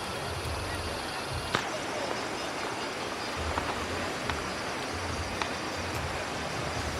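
Steady rushing of river water, with a few faint clicks and some low rumble from wind on the microphone.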